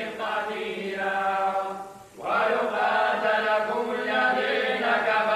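Sufi brotherhood chanting: a group of men's voices holding long notes together. The chant breaks off briefly about two seconds in, then comes back louder.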